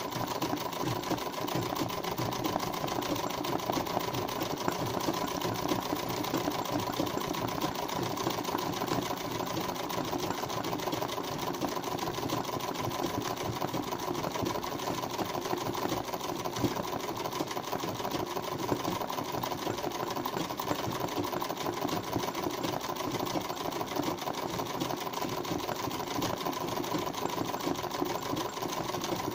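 Domestic straight-stitch sewing machine running steadily at speed, its needle stitching in a fast, even patter, as used for free-motion machine embroidery.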